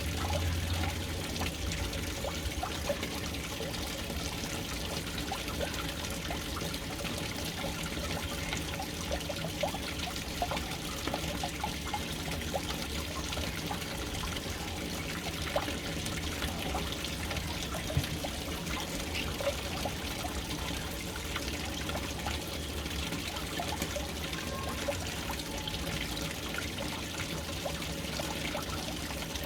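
Water pouring steadily into a household water tank, a continuous splashing stream with small scattered drips and splashes.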